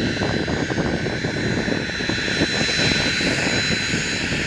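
Cessna 525A Citation CJ2's twin Williams FJ44 turbofan engines running at taxi power as the jet rolls along the ground. A steady high whine sits over a constant rushing hiss.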